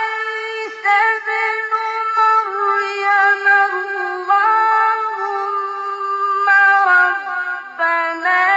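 A male Quran reciter chanting in the ornate mujawwad style: long, high, held phrases with ornamental turns and short breaks for breath. The voice dips lower about seven seconds in, then climbs back up near the end.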